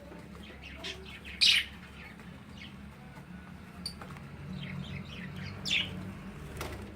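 Pet birds chirping in short, high calls, scattered through, the loudest about one and a half seconds in and again near six seconds, over a low steady hum.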